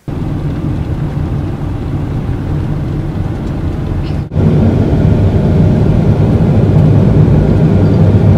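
VW T5 van driving on a snow-covered road, heard from inside the cab: a steady low engine drone and the rumble of studded winter tyres. A cut about four seconds in brings a louder stretch of the same driving noise.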